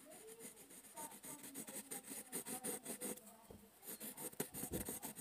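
Pencil drawing lines on paper: faint, quick, irregular scratchy strokes.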